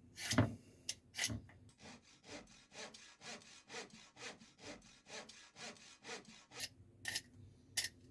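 Vegetable peeler scraping a carrot in short, even strokes, about three a second, after a couple of knocks in the first second or so.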